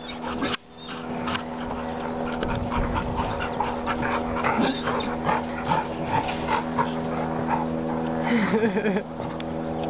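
Dog whining and whimpering in a string of short sounds, with a longer wavering whine near the end.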